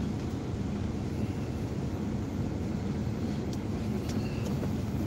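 Steady low engine and road rumble heard from inside a car's cabin as it drives slowly, with a few faint ticks about three and a half seconds in.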